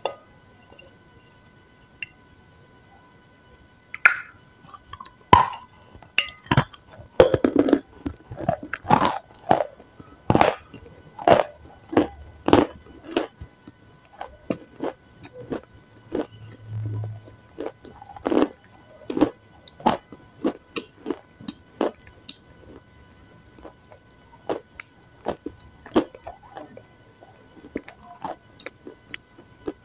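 Biting and chewing of a white cake with a dark grey coating: many sharp irregular crunching clicks and mouth sounds, thickest in the first two-thirds and thinning out towards the end.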